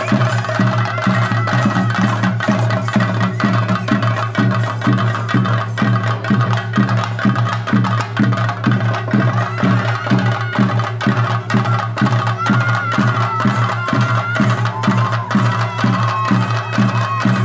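Chenda drum ensemble playing theyyam accompaniment, a steady run of about three drum strokes a second, with a thin high tone wavering in pitch over it.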